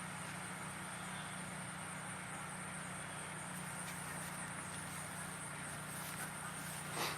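Steady outdoor background noise: an even hiss under a low steady hum and a thin, high, steady tone, with a single sharp click about seven seconds in.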